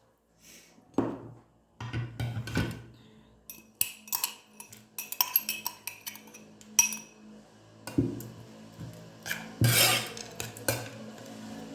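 Kitchen utensils and dishes clinking and knocking in irregular sharp strikes, as a strainer, spoon and glassware are handled. A longer rush of noise comes near the end.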